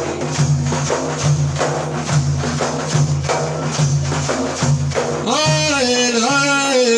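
Frame drums with jingles beating a steady rhythm over a low droning accompaniment, as a musical interlude in an Iraqi lament. About five seconds in, a held, wavering melodic line comes in over the beat.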